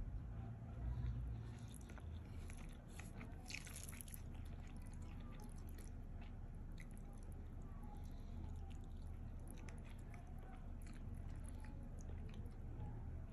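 Fingers squashing and mixing boiled rice with a fried egg on a plate: soft, sticky squishes and small wet clicks, over a steady low hum.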